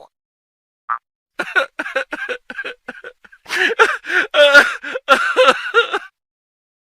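High-pitched laughter sound effect: a voice giggling in a run of quick, choppy bursts for about four and a half seconds, after a brief blip about a second in.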